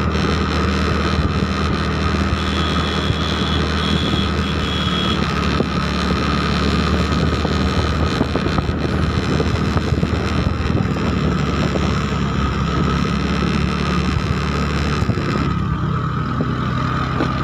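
A motor vehicle's engine running steadily while riding along a road, heard from on board, with wind on the microphone.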